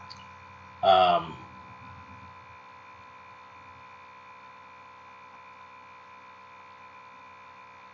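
A steady electrical hum with a few fixed tones, the recording's background noise, and one short vocal sound, such as an "um", about a second in.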